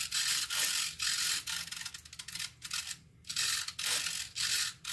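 Tiny linear-action RC aileron servo (Spektrum A2030 ultra-micro 2.3 g long-throw) buzzing in short bursts, about two a second, as it is driven back and forth: the new servo working on a bench test.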